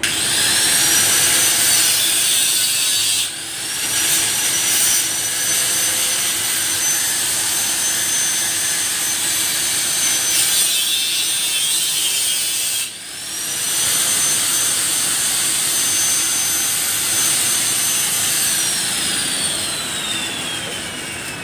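Electric angle grinder spinning up to a high whine and grinding at the edge of a bus's fender panel. The trigger is let go briefly about 3 seconds in and again about 13 seconds in, each time spinning back up, and the motor winds down with a falling whine near the end.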